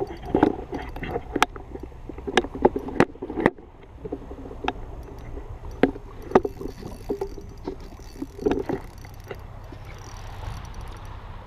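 Water splashing and a string of sharp, irregular knocks as a landing net is dipped and worked in the water alongside a fishing boat, over a low steady rumble. The knocks are thickest in the first half.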